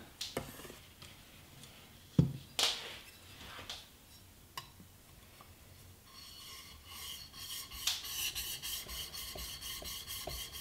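The flat back of a steel plane iron rubbed on a 1000-grit diamond sharpening plate, polishing the back of the iron: fast, even scraping strokes from about six seconds in. Before the strokes, a few knocks, the loudest about two seconds in.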